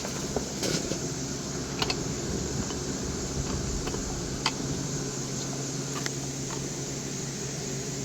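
A steady low mechanical hum with a few light clicks.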